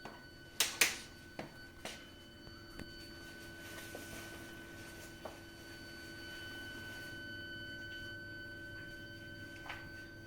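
A heating system's heat interface unit and pipework give out a continuous, shrill high-pitched whistle: several steady tones held together. This is the abnormal plumbing noise that occurs even when the heating and hot water are not in use. A couple of sharp knocks come just under a second in.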